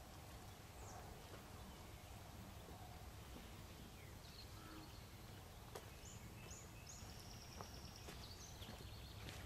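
Quiet outdoor ambience with a low steady rumble, and faint bird chirps with one held high note in the second half. A few faint clicks are heard along the way.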